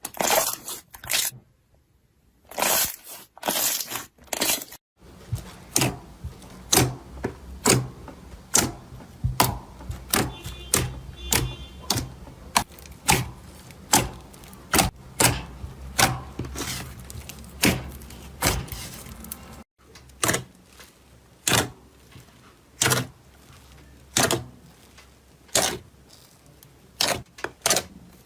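A long run of sharp clicks at an irregular pace, roughly one to two a second. A low steady hum lies under them from about five seconds in until about twenty seconds in.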